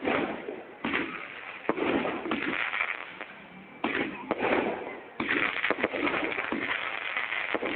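Fireworks going off: a continuous run of bangs and crackling, with a fresh loud burst every second or so.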